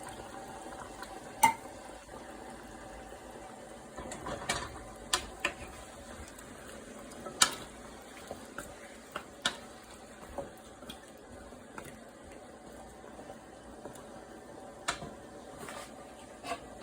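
A spoon stirring coconut milk into a pot of chicken curry, knocking against the pot's sides about a dozen times at irregular intervals. A steady low hiss of the simmering pot runs underneath.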